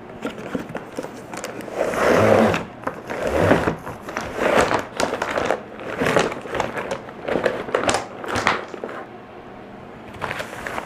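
Cardboard box and packaging of a rotary chimney-cleaning kit being handled and unpacked: irregular rustling, scraping and light knocks, dying down near the end.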